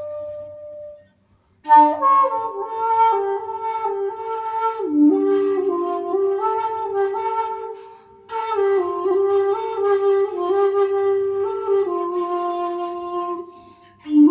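Shakuhachi bamboo flute playing a slow melody. A held note fades out within the first second, then after a short break come two phrases of notes stepping up and down, with a brief pause between them about eight seconds in.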